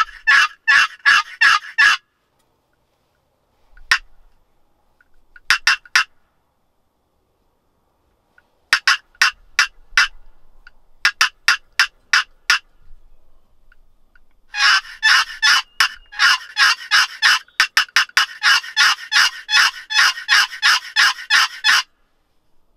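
Wooden box turkey call played in sets of rasping yelps with pauses between, then a long, fast run of notes from about 15 seconds in to near the end, calling to draw a gobbler in.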